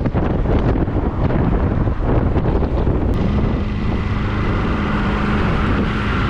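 Heavy wind buffeting on the microphone of a camera moving with a road cycling group at riding speed. About three seconds in the gusting eases and a steady low hum sets in under the wind.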